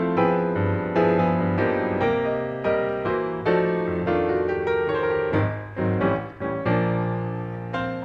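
Background piano music: a slow melody of single struck notes over held chords.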